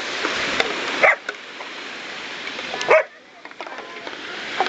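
German shepherd barking twice, short sharp barks about a second in and at about three seconds, over the steady wash of surf.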